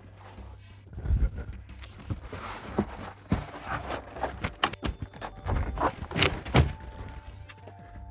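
A large cardboard shipping box being lifted up and off a subwoofer: cardboard scraping and rustling, with a string of knocks and thumps and footsteps.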